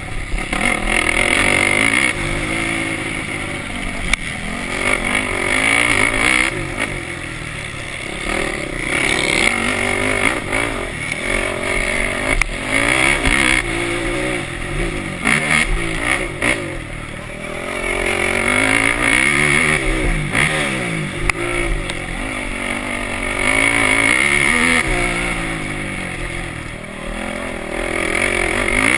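Racing quad's engine running hard, its pitch rising and falling over and over with throttle and gear changes, heard close from on board. A few sharp knocks cut through along the way.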